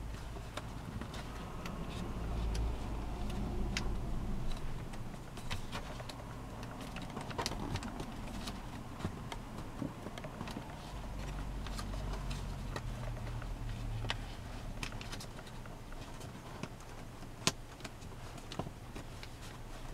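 Origami paper rustling and crackling as it is folded and creased by hand, with irregular sharp crinkles and one louder click near the end, over a low steady rumble.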